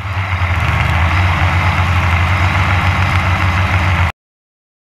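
Blade 350 QX2 quadcopter's brushless motors and propellers running as heard by its onboard camera, with strong wind on the microphone adding a rumble. The sound cuts off suddenly about four seconds in.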